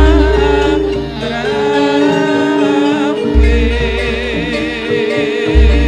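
Javanese gamelan music: held metallophone notes under a wavering singing voice, with a deep low stroke at the start, another about three seconds in, and a third near the end.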